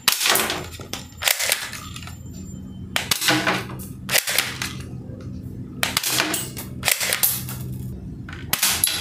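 Plastic toy AK-47 BB gun firing single shots, several sharp pops spaced a second or more apart, as its plastic pellets knock small plastic action figures over.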